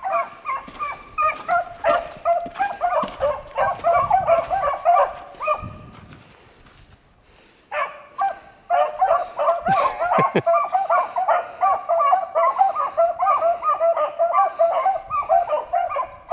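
A pack of beagles giving tongue on a rabbit's track: many rapid, overlapping high yelps. The cry drops away about six seconds in, then picks back up a couple of seconds later and carries on.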